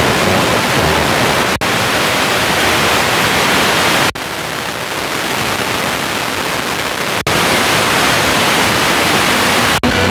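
FM radio static: steady hiss of an empty channel on a smartphone FM tuner scanning between stations, cut by four brief dropouts as the tuner steps up the dial.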